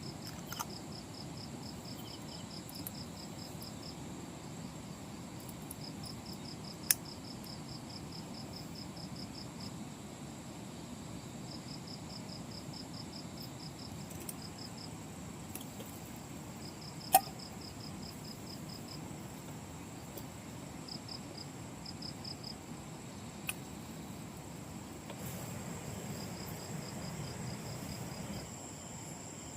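Insects, likely crickets, calling in bouts of rapid, evenly spaced high pulses lasting a few seconds each, over a steady high-pitched insect whine. A few sharp snaps cut through, the loudest about 17 seconds in.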